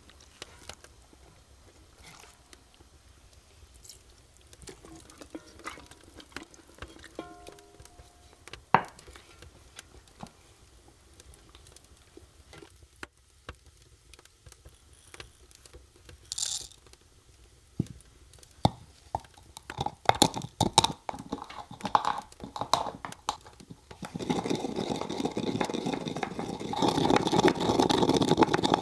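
Wooden pestle grinding black peppercorns in a wooden mortar: a dense, steady crunching grind over the last few seconds. Before that, scattered small clicks and knocks.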